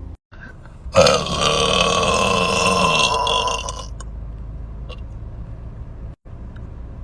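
A person's long, loud burp lasting about three seconds, starting about a second in and dropping slightly in pitch as it trails off.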